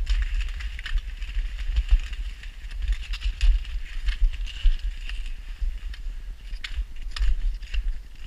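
Skis sliding and scraping over packed snow and ice as a dog pulls the skier, with scattered clicks and wind rumbling on the camera microphone.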